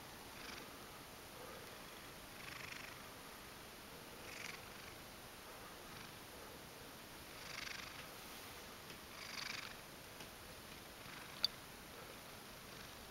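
Ragdoll cat purring close to the microphone, the purr swelling quietly about every two seconds with its breathing. A single sharp click near the end.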